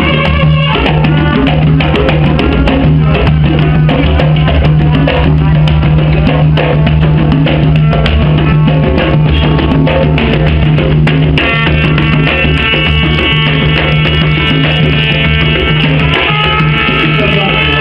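Live hand-drum jam: several djembes played together in a dense, driving rhythm. About eleven seconds in, a pitched instrument, likely the brass, comes in with held notes above the drums.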